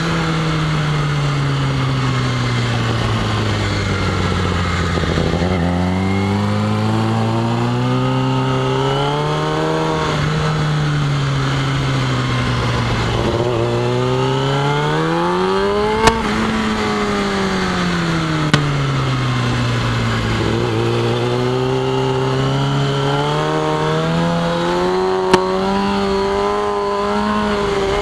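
Yamaha YZF-R6S sport bike's inline-four engine running under way. Its speed drops and climbs in slow waves, several times, then holds steady near the end. Three short sharp clicks come about halfway through and later.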